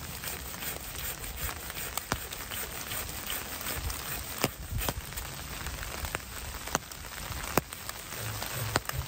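Steady rain falling on wet leaf litter, with scattered sharp taps of single drops landing close by.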